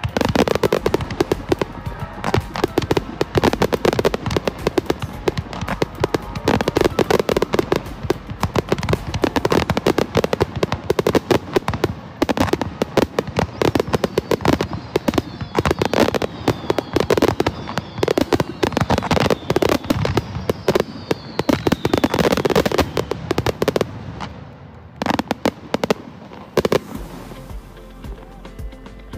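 Fireworks bursting in a dense, rapid barrage of bangs and crackling, over background music. The barrage thins out near the end to a few last bangs.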